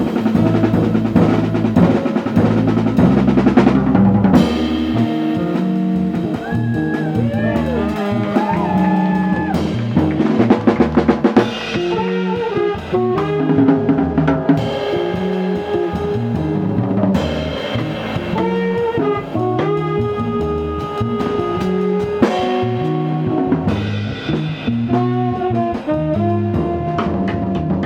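A live jazz band playing: a drum kit with a bass line under a lead melody of held notes, some of which bend in pitch.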